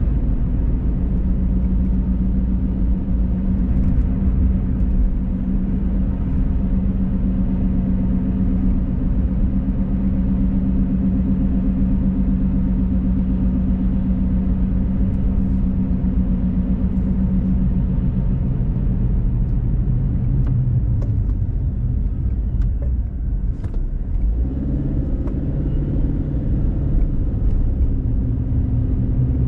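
Car driving on a paved road, heard from inside the cabin: a steady road and engine rumble with a hum. The hum sinks in pitch about two-thirds of the way through, then comes back higher.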